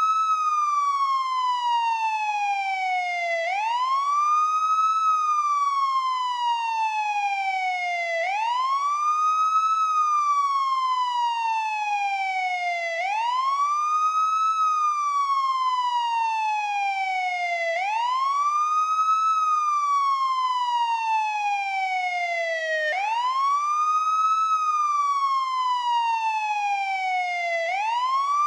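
Police siren in wail mode: a steady tone that rises quickly, then falls slowly, the cycle repeating about every five seconds.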